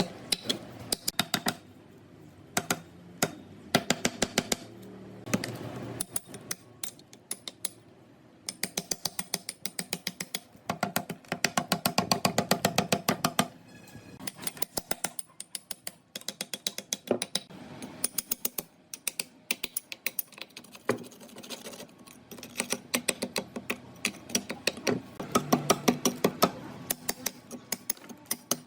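Quick runs of sharp metallic taps and clicks, several a second, from hand tools working on a rusted concrete-mixer gearbox.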